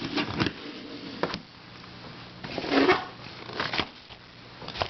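Hard plastic puzzle pieces being turned and handled, a few sharp clicks followed by short scraping and rustling bursts.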